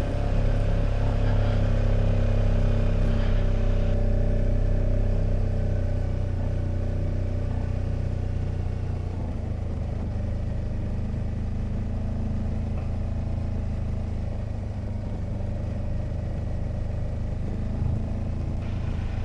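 Kawasaki Versys motorcycle engine running steadily at low revs, a little louder for the first few seconds and then settling lower and even.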